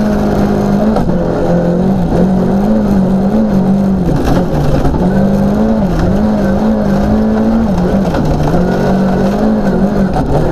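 Volvo 940 Group H rally car's engine heard from inside the cabin, held at high revs and dipping in pitch then climbing again several times as the driver changes gear and lifts off. A constant roar of tyres and gravel runs underneath.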